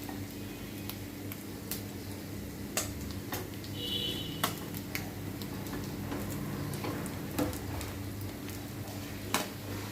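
Small chapila fish frying in oil in a pan on crisping heat: a faint steady sizzle under a low hum, with scattered sharp clicks of a utensil against the pan.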